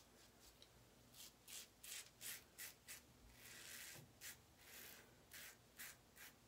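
Blackland Sabre single-edge razor scraping through lathered stubble on the neck, in a run of short strokes about two or three a second, with one longer stroke near the middle.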